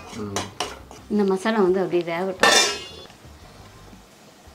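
A metal ladle scraping and clinking against a steel kadai while stirring thick masala, with a louder clatter about two and a half seconds in.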